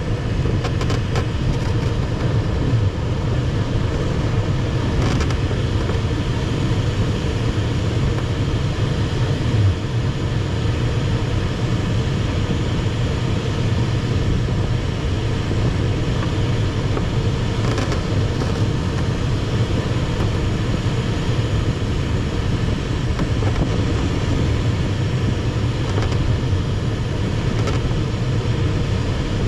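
Steady rush and low rumble of air streaming over an ASW 15 glider in flight, heard inside the cockpit.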